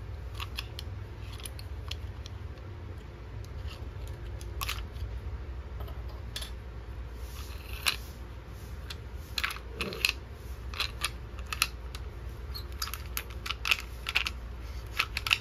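Light clicks and taps of a screwdriver's storage handle being opened and the small metal sockets and bits inside knocking against it as they are handled, scattered at first and coming thicker in the second half, over a low steady hum.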